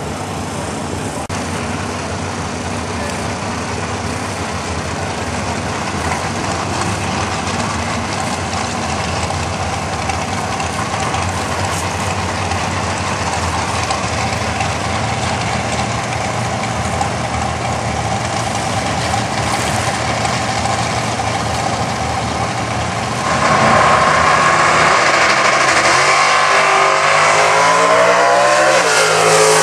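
Drag-racing cars running at the starting line. About three-quarters of the way through, a launch brings a sudden jump to full throttle. The engine pitch then climbs and drops at a gear change near the end.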